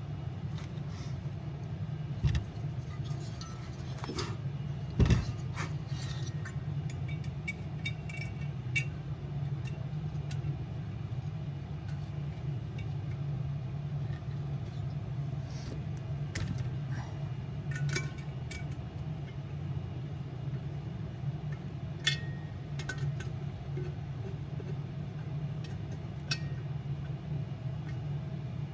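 Scattered metallic clinks and taps of an Allen wrench and bolts while a diesel heater is bolted back together, with a louder knock about five seconds in. A steady low hum runs underneath.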